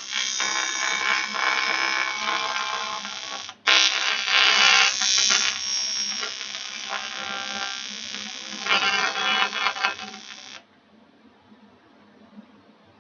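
TIG welding arc buzzing steadily. It breaks off briefly about three and a half seconds in, restarts, and stops about ten and a half seconds in.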